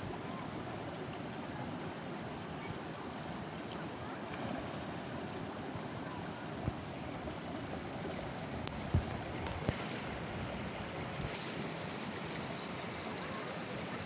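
River water running and trickling between rocks at a weir, a steady wash that turns brighter and hissier past the middle. A few light knocks stand out about two-thirds of the way in.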